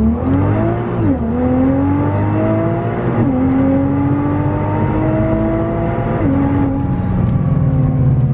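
Nissan GT-R's twin-turbo V6, heard from inside the cabin, accelerating hard with its valved Armytrix exhaust open. The engine pitch climbs and drops sharply at quick upshifts about one, three and six seconds in, then holds lower near the end.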